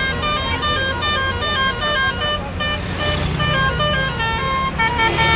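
Basuri 'telolet' bus horn playing a quick tune of short, stepping notes, then holding a chord of several notes near the end, over the low running of a bus engine.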